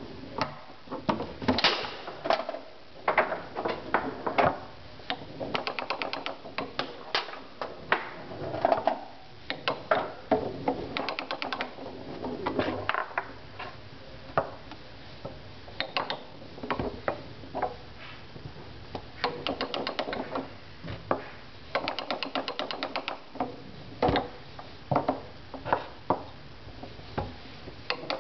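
Foosball ball being tapped and passed between the plastic men on a Tornado foosball table: irregular sharp clicks and knocks, with a few quick rattling runs of taps.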